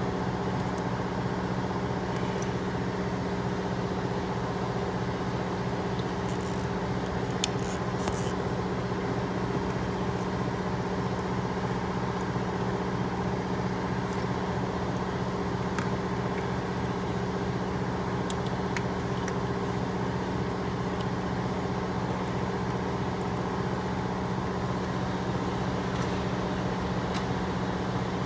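Steady machine hum at an unchanging pitch, with a few faint clicks and taps now and then.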